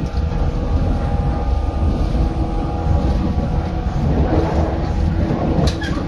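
Running sound of a 115 series electric multiple unit heard from inside the car: a steady rumble of wheels on rail with a low motor hum, and a short high squeak near the end.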